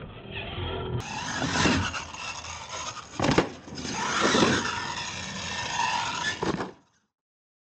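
Radio-controlled monster trucks running on a dirt course: motor whine rising and falling with the throttle, tyres scraping and skidding on dirt, and a knock about three seconds in. The sound cuts off shortly before the end.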